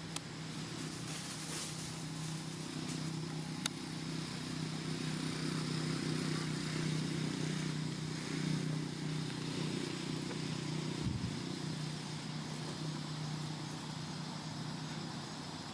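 Steady low hum of an engine running, easing off after about eleven seconds, with one sharp click a little under four seconds in.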